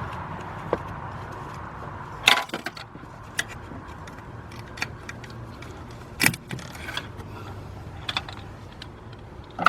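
Small metal pick scraping and clinking against corrosion down in a spark plug well, in short irregular strokes every second or so; the loudest scrapes come about two and six seconds in.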